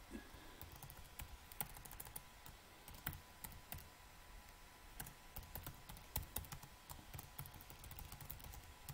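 Typing on a computer keyboard: an irregular run of faint key clicks.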